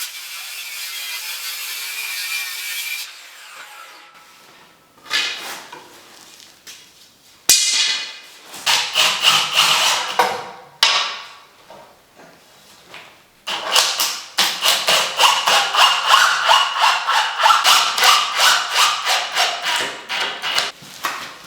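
Hand saw cutting through wood: a few separate strokes, then from about two-thirds of the way in a fast, even back-and-forth run of about three strokes a second. A steady hiss fills the first few seconds.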